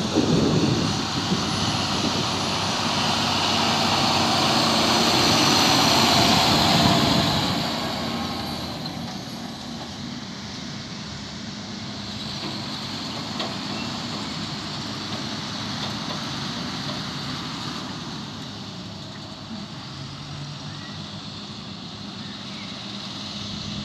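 John Deere 6830 Premium tractor's six-cylinder diesel engine running under load as it pulls a Strautmann loader wagon picking up grass. Louder for the first eight seconds or so, then quieter and steady.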